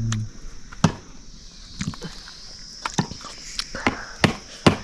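Sharp knocks, about six of them at uneven gaps, typical of tools striking wood or comb while a bee colony is being worked.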